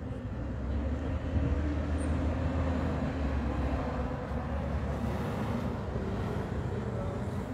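Street noise: a steady low rumble of vehicle engines, with a faint even hum over it.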